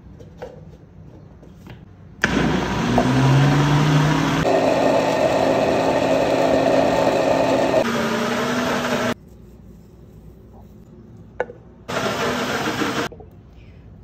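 Philips Walita PowerChop 600 W blender blending a batter of eggs, milk, oil, grated cheese and sweet manioc starch: the motor spins up with a rising pitch about two seconds in, runs for about seven seconds, its tone shifting as the mix turns smooth, and stops. A second, shorter burst of about a second follows near the end.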